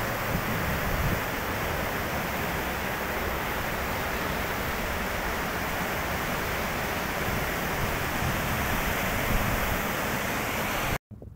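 Steady, even rushing of a fast mountain river, with no break or change in pitch, cutting off suddenly near the end.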